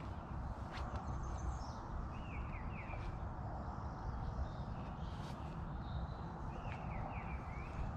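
A songbird calling twice in short phrases of three or four quick falling notes, over a steady low outdoor rumble with a few faint clicks.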